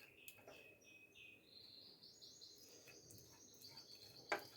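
Near silence: room tone with faint high-pitched chirping tones that step upward in pitch, and a short click near the end.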